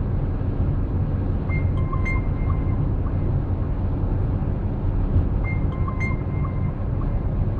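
Steady road and engine noise inside a car's cabin while driving at motorway speed, a low rumble with no sudden events.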